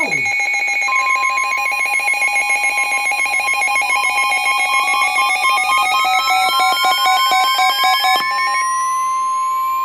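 Layered electronic emergency alert tones sounding ahead of a tornado warning: a rapidly pulsing two-tone warble, a steady single alarm tone from about a second in, and a tone that rises slowly in pitch from about four seconds in. A quick pitch swoop comes right at the start, and all the tones cut off together at the end.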